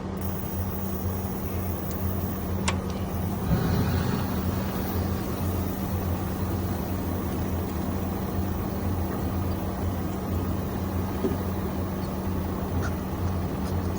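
A diesel engine of heavy machinery running steadily at idle, a low even drone with a brief louder swell about three and a half seconds in and a single click a little before it.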